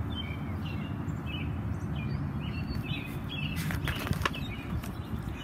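Small birds chirping over a steady outdoor background rumble. A little past halfway, a few sharp rustling clicks come as a page of a picture book is turned.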